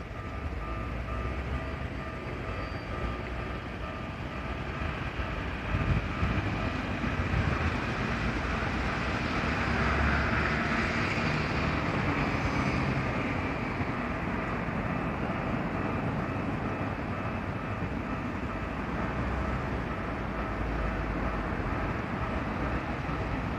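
Japanese railway level-crossing warning bell ringing steadily while a Keikyu Main Line train runs over the crossing; the train noise swells about six seconds in and is loudest around ten to thirteen seconds.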